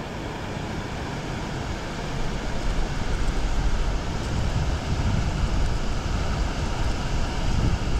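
Wind buffeting the microphone: a low, uneven rumble that grows louder about two seconds in.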